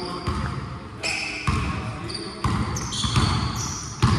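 Basketball bouncing on a gym floor: about five sharp bounces at uneven intervals of roughly a second, each with a low thud and a short ringing tail.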